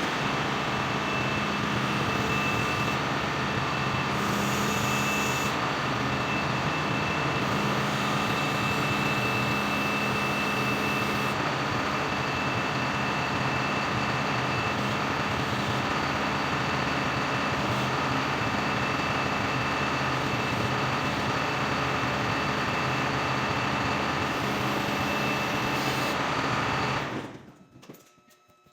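Alamo Samurai 22 boom mower and its tractor running steadily, with a high steady whine over the engine noise, while the machine is tried out after its pilot module was replaced. The sound cuts off about 27 seconds in.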